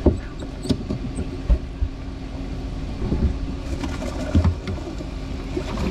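Scattered knocks and thumps as fish are grabbed by hand in a bass boat's livewell, over a steady low hum.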